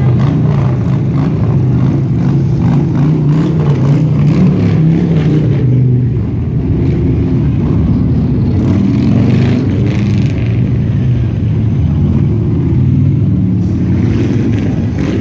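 A procession of cruiser and touring motorcycles riding slowly past one after another, their engines running with a low, steady note that rises and falls a little as each bike goes by.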